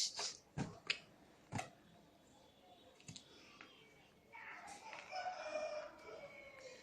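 A few sharp knocks, then from a little past the middle a drawn-out, wavering crowing call lasting about two and a half seconds.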